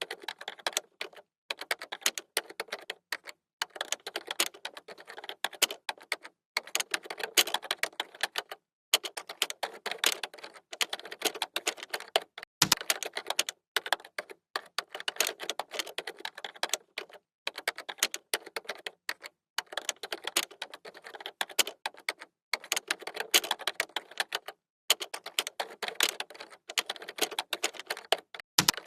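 Computer keyboard typing: fast runs of key clicks broken by short pauses every second or two, with a deeper thump about 13 seconds in and again near the end.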